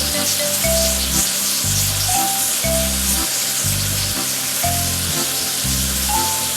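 Loud, steady hissing water spray, a pressure-washer sound effect, over background music with a steady bass beat.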